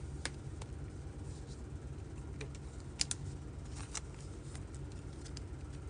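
Light, scattered clicks and taps of trading cards being handled and sorted, with a sharper double click about three seconds in, over a faint low room hum.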